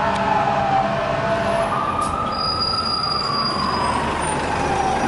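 Fire truck siren wailing in slow cycles: the pitch climbs quickly, then falls for several seconds and starts again, over a steady low rumble of traffic and engines.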